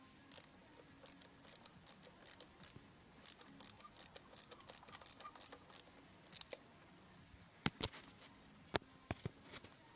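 Light irregular clicks and taps of a wrench working the 8 mm bolts of a scooter's variator cover, with a few sharper, louder metallic clicks near the end.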